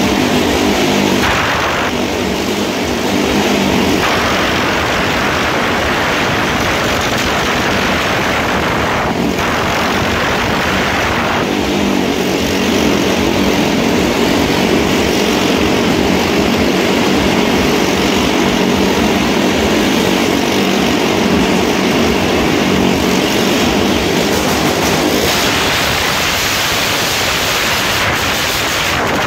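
Motorcycle engines running hard as the riders circle the vertical plank wall of a wall-of-death drum, a loud continuous engine drone that shifts in pitch a few times as they speed up and ease off.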